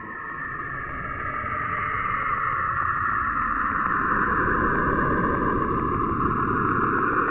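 Sonified space recording presented as the sound of Saturn: electromagnetic radio emissions from a space probe converted to audio, heard as an eerie, steady whooshing drone with a hissing whistle-like band over a low rumble, growing louder, with faint rapid ticking.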